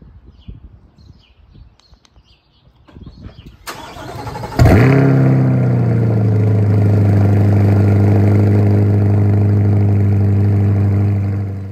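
2023 Chevrolet Corvette C8 Stingray's 6.2-litre LT2 V8 cold-starting through an AWE Track catback exhaust: a short crank about four seconds in, then it fires with a loud flare that drops within a second or two into a steady, fast cold idle.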